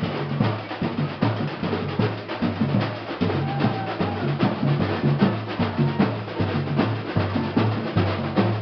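Batucada percussion group playing a steady rhythm: deep bass drums under dense, rapid snare-type strokes.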